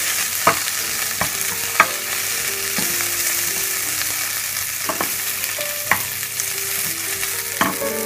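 Chunks of cooked chicken coated in tomato puree and chilli paste frying in a little olive oil in a non-stick pan, a steady sizzle. A wooden spoon stirs them round, with a few sharp knocks of the spoon against the pan.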